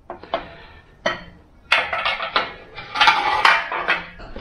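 Metal parts clinking and clattering as they are handled: a few separate knocks, then a busier run of clanks from a little before halfway on.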